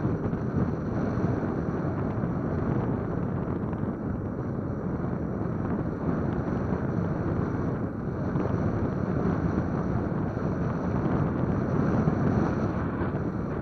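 Wind blowing across the microphone in open sand dunes: a steady low rushing noise that swells and eases a little.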